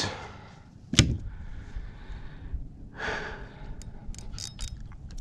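A sharp knock about a second in, then a man breathing out in long, heavy sighs, with a few short clicks near the end.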